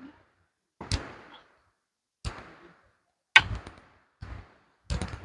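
Footsteps on a rocky trail: a series of sharp steps about one a second, each with a short crunching scrape.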